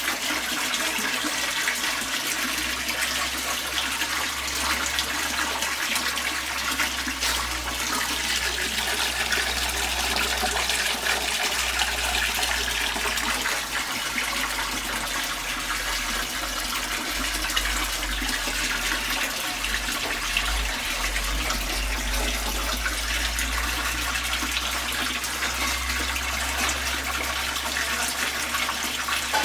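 GE Ecoperformance 15 kg top-loading washing machine draining its wash water before the spin cycle: a steady rush of water with a low hum beneath.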